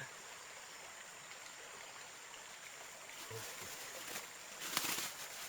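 Steady hiss of flowing river water, with a few short noisy sounds in the second half, the loudest just under five seconds in.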